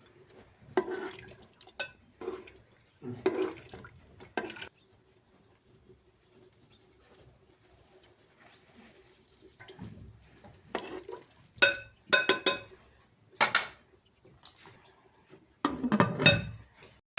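Metal kitchenware being handled: irregular knocks and clatter, with a few ringing metallic clinks. There is a quiet pause in the middle, then a denser run of clinks in the second half.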